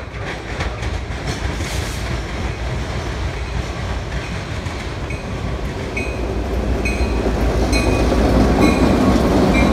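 Freight train led by diesel-electric locomotives passing close by, growing louder as the engines draw level, with wheels clattering on the rails. A bell rings roughly once a second through the second half.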